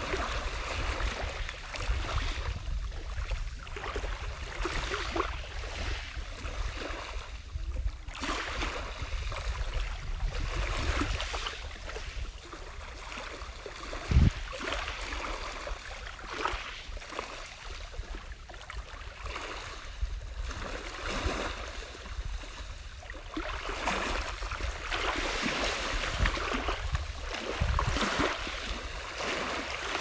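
Small sea waves washing and splashing, with the sound of water swelling and fading every few seconds. A single low thump comes about halfway through.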